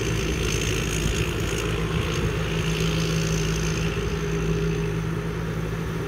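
Rice combine harvester running steadily while harvesting, its engine and threshing machinery making an even drone.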